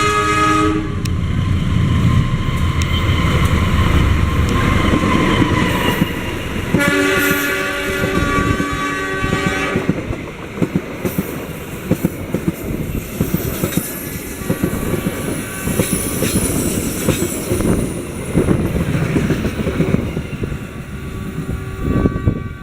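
A CC 203 diesel-electric locomotive's multi-tone horn sounds the S.35 warning signal, a blast that stops about a second in, then the locomotive rumbles past and a second blast sounds from about 7 to 10 seconds. After that the passenger carriages roll by with steady clickety-clack of wheels over rail joints.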